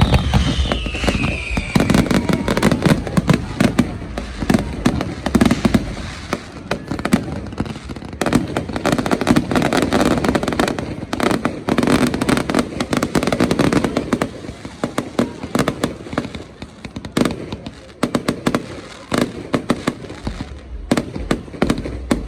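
Fireworks going off in a dense, continuous string of bangs and crackles. A whistling shell glides down in pitch over the first couple of seconds.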